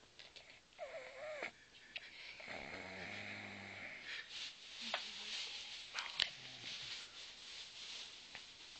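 Snoring: a low, pitched snore about two and a half seconds in, lasting over a second, followed by a longer breathy hiss with a few small clicks.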